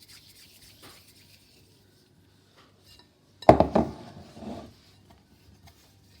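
Kitchen utensils and dishes handled on a counter: light scraping and clicks, then one loud clatter of a dish or utensil set down about three and a half seconds in, ringing briefly.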